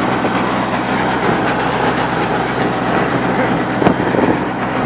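Small round baler running behind its tractor: a steady engine drone with machinery noise, and one sharp click about four seconds in.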